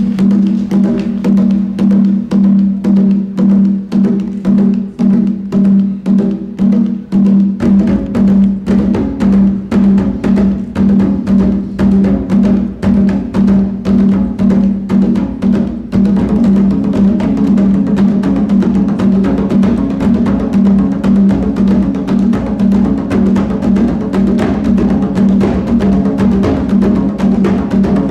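Live percussion ensemble of congas and djembes with a drum kit playing a fast, steady rhythmic groove over a sustained low pitched tone. Deeper drums fill out the low end about eight seconds in, and about halfway through the pattern turns denser and more even.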